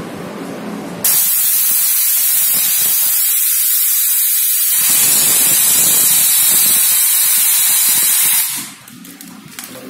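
Compressed air hissing loudly from the pneumatic filter-regulator on a pouch sealing machine's air line, starting abruptly about a second in, holding steady, and cutting off sharply near the end.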